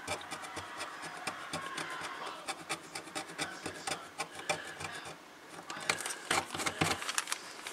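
A small metal tool scraping green solder mask off the copper traces of a circuit board, in rapid short strokes several a second. The strokes stop briefly about five seconds in, then resume a little louder.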